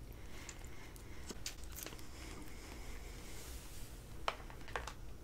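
Close-miked eating sounds of a soft, jelly-like purple sweet: scattered wet, sticky mouth clicks and squishing, with a sharper click about four seconds in.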